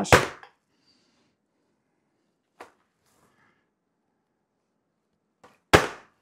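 A Team Associated RC buggy dropped onto a tabletop twice, each landing a sharp knock of tyres and chassis that dies away within about half a second: one right at the start, the other near the end, with a faint tick between. The drops test how its shock absorbers damp the landing.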